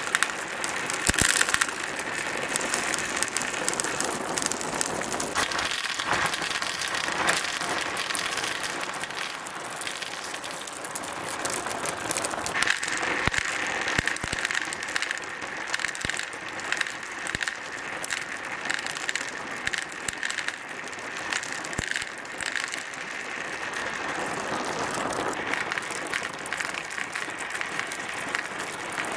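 Marbles rolling and clattering down plastic track slopes: a steady rattling roll with frequent sharp clicks as they knock together and against the track.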